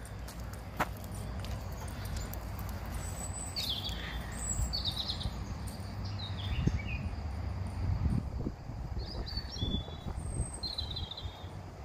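Small songbirds chirping in short bursts, about five times, over a steady low rumble.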